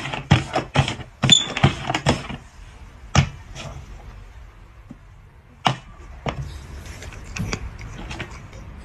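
Small cups knocked and slid on a hard board as they are shuffled: a quick run of sharp clacks in the first two seconds, then a few single knocks spaced out.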